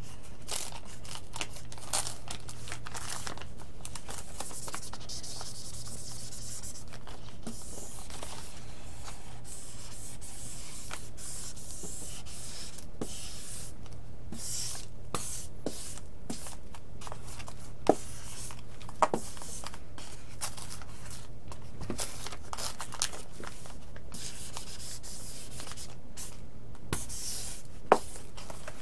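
Hobby sealing iron in a cloth sock rubbing and sliding over decals on an RC airplane wing, a soft scraping hiss that swells and fades with each stroke, pressing the decals back down with heat. A low steady hum lies underneath, and a few sharp clicks come in the second half.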